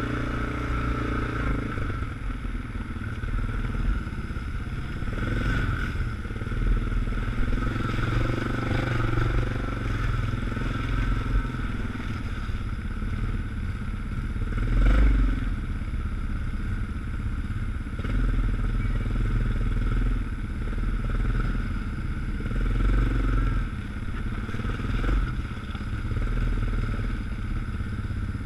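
ATV engine running steadily under way on a rough, slushy trail, with rattling and clatter from the machine over the ground and a louder thump about halfway through.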